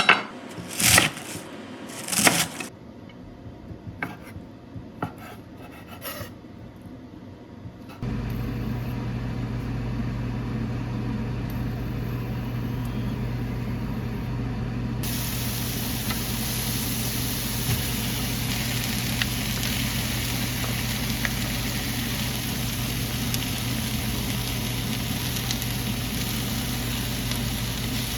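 A few sharp kitchen knocks and clicks, then food sizzling steadily in a frying pan over a low hum, the sizzle turning hissier about halfway through.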